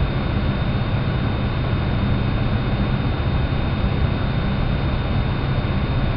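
Steady computer-lab room noise: a low hum under an even hiss, with a thin high whine held throughout.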